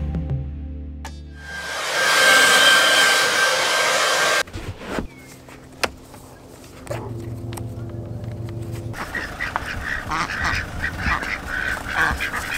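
Indian runner ducks quacking repeatedly in short nasal calls through the last three seconds or so. Earlier, about two seconds in, a steady rushing hiss runs for a couple of seconds and stops suddenly, after music fades out at the start.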